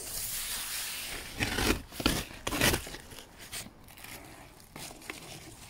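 Cardboard box flaps being pulled open and handled, with rustling and scraping: a continuous rustle at first, then a quick run of separate scraping strokes, dying down to quieter handling after about three seconds.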